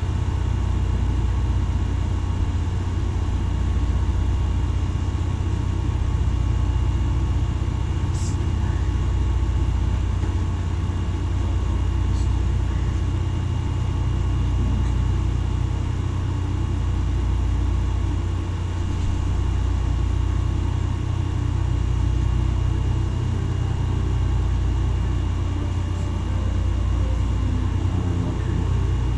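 A steady low mechanical drone with a faint high tone above it, and a few light clicks about a third of the way in.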